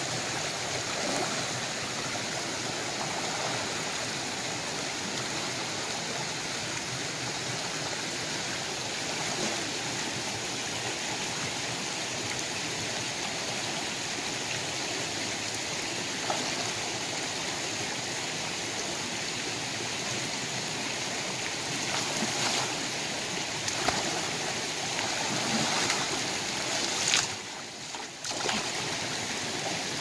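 Shallow rocky stream rushing steadily over stones. A few short, sharp sounds come near the end, with a brief drop in level just before it ends.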